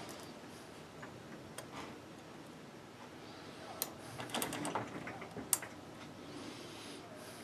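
A few light clicks and clinks from small metal parts being handled, scattered across several seconds with a short cluster in the middle. The grinder motor is not running.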